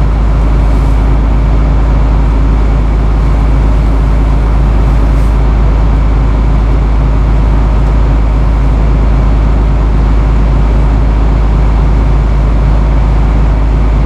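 Engine running steadily at constant speed, a loud low drone with no change in pitch.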